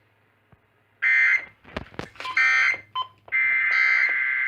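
Emergency Alert System SAME data tones: three shrill, buzzing digital tone bursts, the first about a second in, the second about two seconds in, and a longer one from about three seconds in. They carry the coded header of an emergency alert broadcast.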